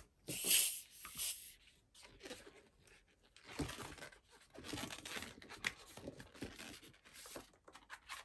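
A short rush of air from a hand balloon pump near the start, then the rubbing and stretching of a latex twisting balloon as it is knotted and handled.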